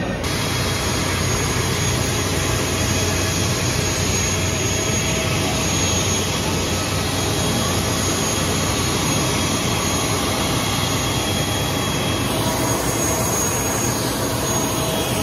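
Airliner engine running steadily: an even rushing whine with faint steady tones, no change in pitch or level.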